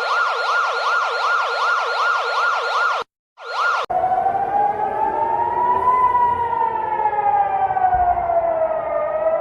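Emergency alert sirens. First a fast warble sweeps up and down about four times a second and cuts off about three seconds in. After a short break, a slow wailing siren rises and falls over several seconds.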